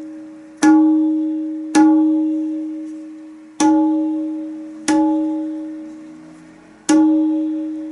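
A tabla struck five single strokes at uneven intervals, each ringing out with a clear, steady pitch that slowly fades. The skin has a small loose flake of its black shyahi paste that makes a slight buzz, and the strokes are test hits around the head to locate it.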